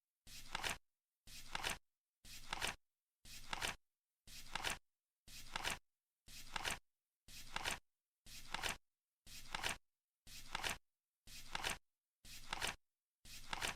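Flip-clock timer flipping once a second as it counts down, each flip a short half-second rustle ending in a sharp clack, evenly spaced with silence in between.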